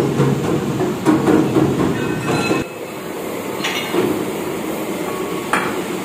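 Workshop machinery running with a dense rumble and clatter, mixed with sharp clanks of mild-steel rim plates being handled. The level drops suddenly about two and a half seconds in, and two sharp metal clanks follow over a steadier machine rumble.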